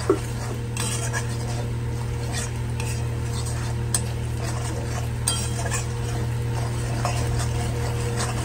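Metal spatula stirring and scraping in a metal kadai, with irregular clicks and scrapes against the pan as ground spices are fried into onions in oil, and a light sizzle. A steady low hum runs underneath.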